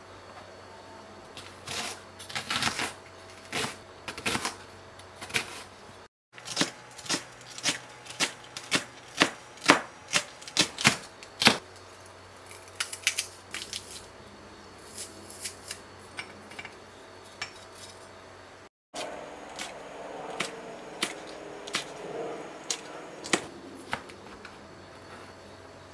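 Kitchen knife chopping on a cutting board: a series of sharp knocks in uneven runs, quickest and loudest about eight to twelve seconds in.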